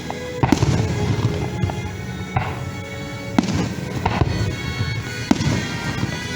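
Fireworks show bursts, about six sharp booms spaced a second or so apart, over show music playing throughout.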